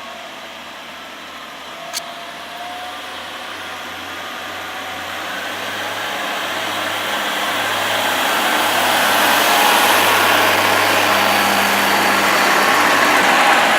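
Class 142 Pacer diesel multiple unit running at the station, engine and wheel noise growing steadily louder over several seconds, with one short sharp click about two seconds in.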